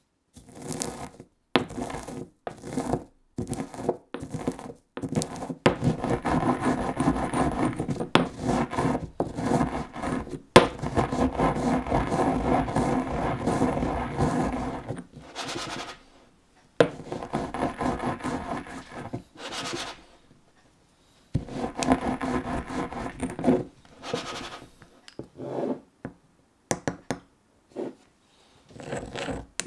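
Stone pestle in a stone mortar crushing and grinding rock salt with toasted mustard and fennel seeds into a seasoning. It starts with a few separate knocks, then gives long stretches of gritty grinding with short pauses between them, and a few light knocks near the end.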